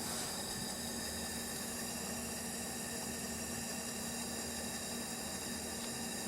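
Vintage Coleman white-gas pressure lantern burning with a steady hiss.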